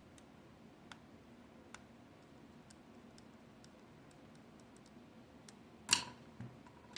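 Scattered faint clicks, then a sharp louder knock about six seconds in followed by a couple of softer taps, like small objects being handled and set down on a work surface.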